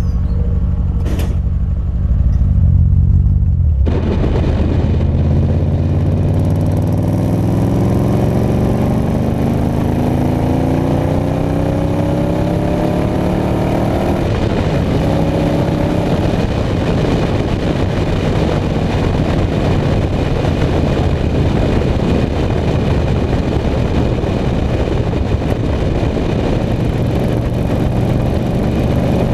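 BMW E39 M5's 4.9-litre V8 heard through an RP Motorsport custom exhaust: a low rumble at first, then a long pull with the engine note rising steadily. About 14 seconds in the pitch drops sharply at a gear change and climbs again, then the engine holds a steady note under wind and road noise.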